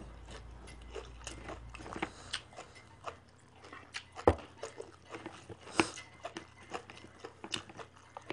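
A person chewing and crunching food, a run of small crunches with two sharper bites about four and six seconds in.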